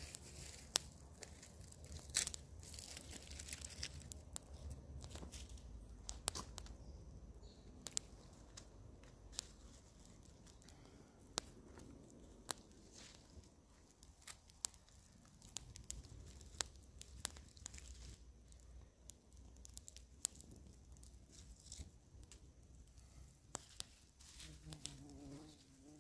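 Small wood fire crackling, with sharp pops and snaps coming at irregular intervals over a low background rumble. The fire is kept smoky to drive off mosquitoes.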